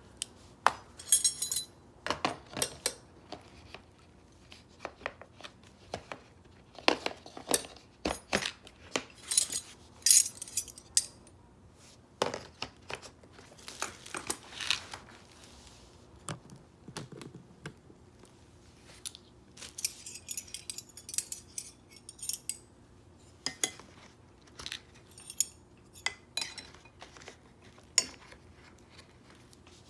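Steel combination wrenches and sockets clinking and knocking as they are picked up and put away in a hard plastic tool case: irregular sharp metallic clicks, some louder clanks.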